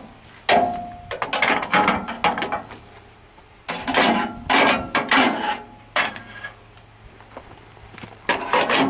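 Irregular metal clanks and wooden knocks as a log is moved into place on a band sawmill's bed. A clank about half a second in rings briefly.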